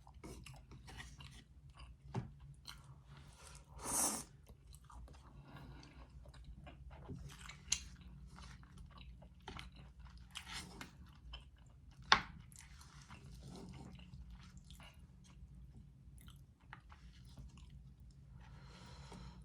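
A person chewing food close to the microphone: soft, wet mouth clicks and chewing sounds throughout. There is a louder rush of noise about four seconds in and one sharp click about twelve seconds in.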